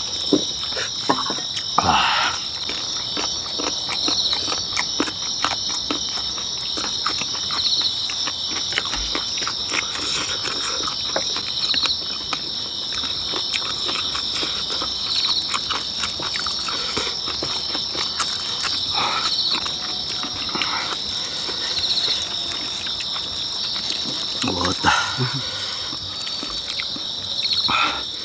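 Insects trilling in a steady high chorus that swells briefly every few seconds, over close eating sounds: chewing, and chopsticks and bowls clicking and knocking on dishes.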